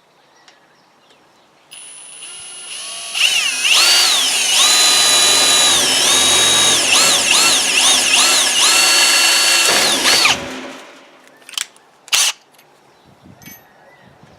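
Electric drill drilling a starter hole into a metal gate latch. The motor starts softly about two seconds in, comes up to speed, and runs for about six seconds with its whine dipping and rising as the trigger is eased and squeezed, then stops about ten seconds in. A couple of short clicks follow.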